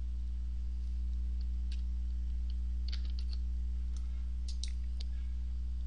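Computer keyboard keystrokes and mouse clicks, scattered, with a quick run of clicks about three seconds in, over a steady low electrical hum.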